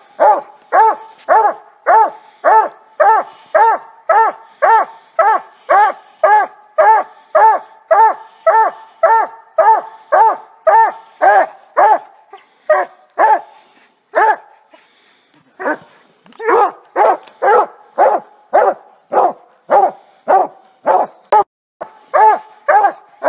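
Young coonhound barking steadily at a tree, about two barks a second: the tree bark a hound gives when it has game treed, here a double treed by the pup alone. The barks thin out briefly past the middle, then pick up again.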